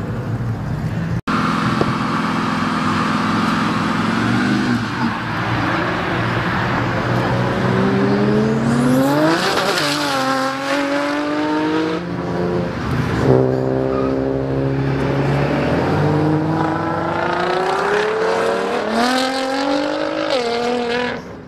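Cars accelerating hard one after another, engines revving up with climbing pitch and dropping back at gear changes, several times over. About halfway through, a car passes close with a rush of tyre and engine noise.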